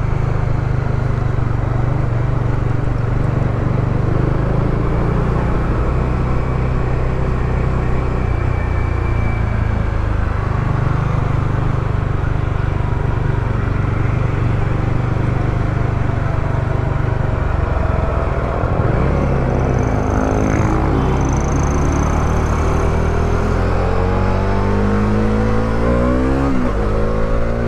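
Motorcycle engine running with wind rush, heard from a lavalier mic inside a closed helmet. In the last third the engine note rises and falls repeatedly as the throttle is worked.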